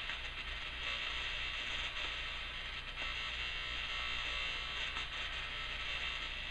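Steady static over a low hum, heard on the TV in place of the Emergency Alert System test's spoken message. The alert's audio feed failed.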